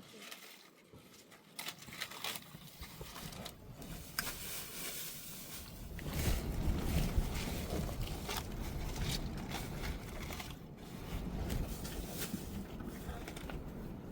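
Strong wind buffeting the microphone: a low rumble that sets in about six seconds in, after a quieter stretch with scattered faint clicks and scrapes.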